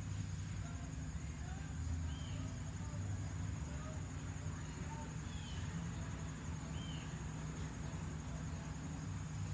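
Outdoor background: a steady low hum and a constant thin high whine, with a few short faint chirps and faint distant voices.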